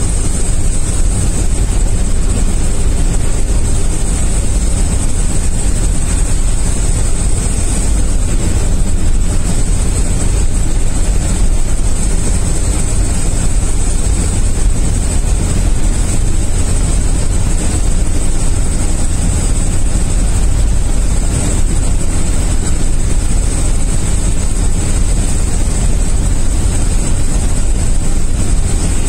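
Truck engine and road noise heard inside the cab while cruising at speed: a loud, steady low drone, with a steady high-pitched tone over it.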